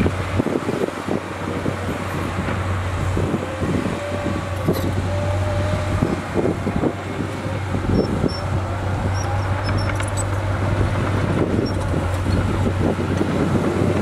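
Komatsu crawler bulldozer's diesel engine running under load with a steady low drone, over irregular clanking from its tracks and rocks tumbling as the blade pushes dirt.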